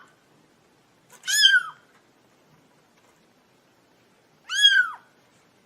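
Cat meowing: two short, high-pitched meows, about a second and four and a half seconds in, each rising and then falling in pitch.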